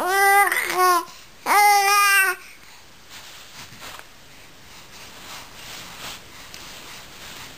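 An 11-week-old baby cooing: two drawn-out, high-pitched vowel sounds in the first couple of seconds.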